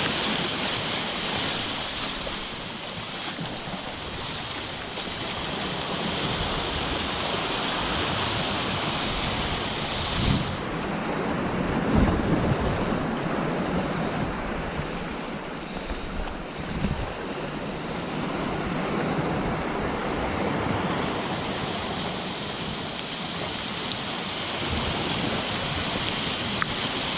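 Atlantic surf breaking and washing over rocks below a clifftop, swelling and easing, with wind buffeting the microphone and a few louder thumps around the middle.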